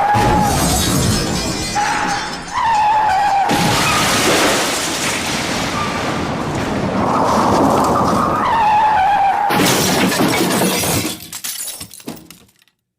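Sound-effect clips of glass shattering and crashing, heard as several loud noisy segments with a wavering tone over parts of them, ending in scattered falling pieces that die away near the end.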